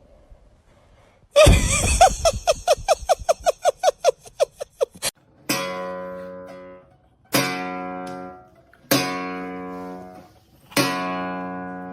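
Acoustic guitar music: after a moment of quiet, a rapid run of quick strums for a few seconds, then four single strummed chords, each left to ring and fade.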